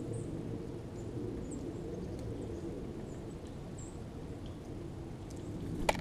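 Steady low outdoor rumble with a few faint, very high, brief chirps from small birds, and a single sharp tap just before the end.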